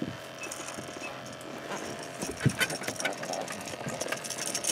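Scattered knocks and clicks as a freshly landed catfish is grabbed and handled on a carpeted boat deck, with one louder knock about halfway, over a steady low hum.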